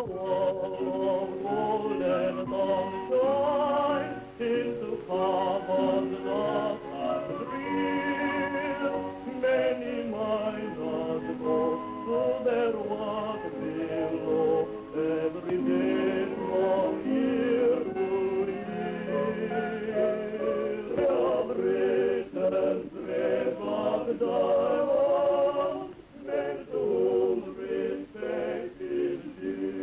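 Title music from an early-1930s sound film: a choir singing with vibrato. It has a muffled, old-recording sound with little top end.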